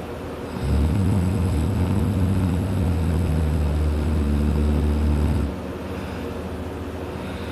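A person snoring loudly while sleeping on his back: one long, low, rattling snore that starts under a second in, holds for about five seconds and cuts off sharply.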